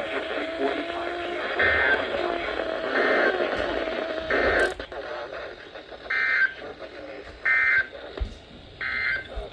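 Emergency Alert System digital data bursts: six short, warbling squawks in two sets of three. They are the end-of-message code closing a severe thunderstorm warning.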